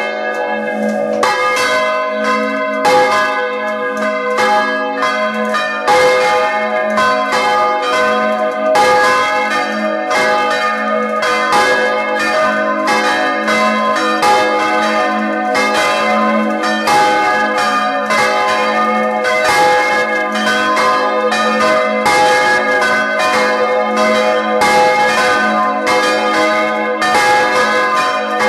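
Swinging bronze church bells ringing together at close range inside the belfry, their clappers striking over and over so the strokes overlap in a continuous peal. The largest bell, tuned to G sharp, is swung by an electric motor and wheel, and its deep hum sounds under the higher bells.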